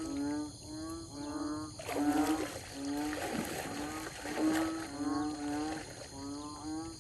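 A chorus of repeated animal calls: short pitched notes, each rising slightly, coming about two or three a second with several callers overlapping.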